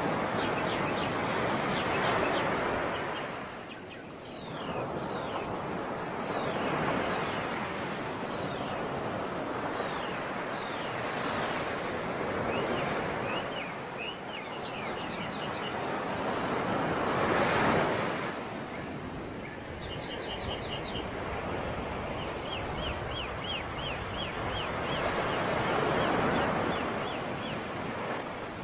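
Sea waves washing ashore, the surf swelling and easing every few seconds. Over it a bird calls repeatedly with short high notes, slurred falling calls in the first half and quick runs of repeated notes near the end.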